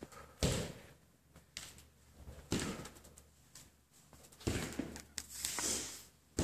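Footfalls of walking lunges on a wooden gym floor, one thud about every two seconds, with a longer hissing noise near the end.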